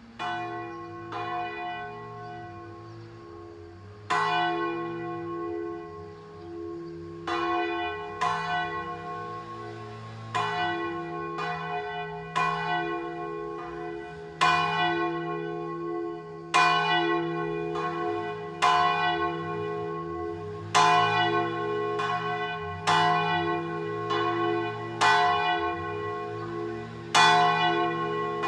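The largest church bell, tuned to F3 and cast by Lera, ringing a distesa (full swing): the clapper strikes as the bell swings up. The strokes start faint and sparse and grow louder and more regular. They settle into a strong stroke about every two seconds, each followed closely by a lighter one, the ring humming on between strokes.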